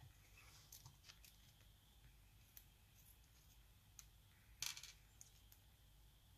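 Near silence with faint, scattered clicks of small lock pins being handled, and a short, louder cluster of clicks about four and a half seconds in.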